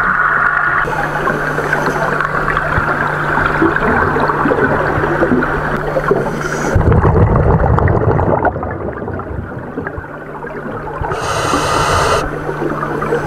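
Underwater sound of a scuba diver breathing through a regulator: a loud rumbling rush of exhaled bubbles about seven seconds in and a hissing inhale near the end, over constant crackling water noise and a steady low hum.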